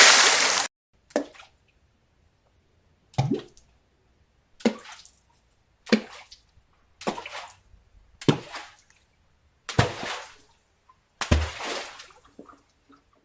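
A series of water splash sound effects, one after another about every second and a half: the tail of a big splash dies out in the first second, then eight short splashes and plops follow, each a sudden low thump into water with a brief splashy tail. The last two splashes, near the end, are bigger and longer.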